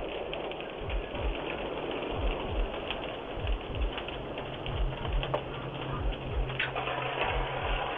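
A burning fire crackling and popping with many rapid small cracks, picked up by a doorbell camera's thin-sounding microphone. A low steady hum joins about halfway through.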